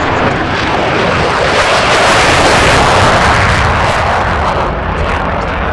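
F-35A Lightning II jet fighter passing in its demo: a loud engine roar that swells to its loudest about two to three seconds in, then eases off a little.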